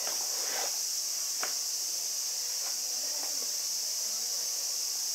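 Steady, high-pitched chorus of insects, with a few faint, short taps over it.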